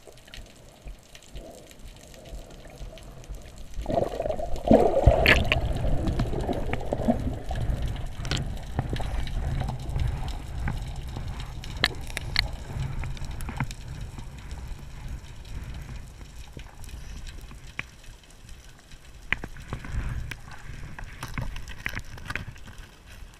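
Muffled underwater sound heard through a camera housing: water rushing and bubbling around the camera as a swimmer dives down, loudest in a burst about four seconds in, then a low rumble of movement through the water with scattered sharp clicks.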